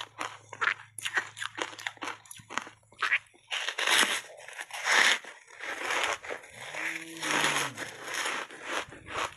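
Close-miked crunching of reshaped ice coated in matcha powder being bitten and chewed. Quick crisp crunches come first, then a big, louder bite about four seconds in, followed by more crunching as it is chewed.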